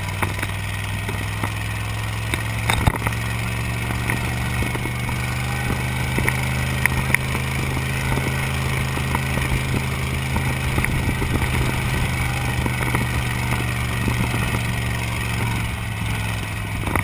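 Dune buggy engine running steadily at a constant pitch while driving over sand dunes, heard from inside the open-framed buggy, with scattered knocks, the loudest about three seconds in.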